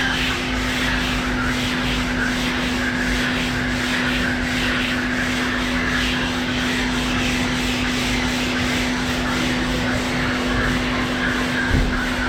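Machine sander with a 120-grit disc running on cured body filler: a steady motor hum under a rasping rub that swells and fades a few times a second as it is passed back and forth over the panel. A brief knock near the end.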